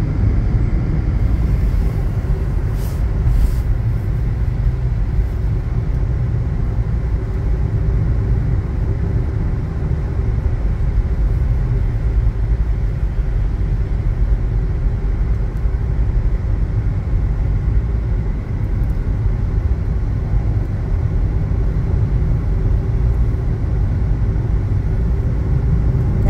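Steady road noise inside a moving car's cabin: a low rumble with a constant hum, and two brief faint clicks about three seconds in.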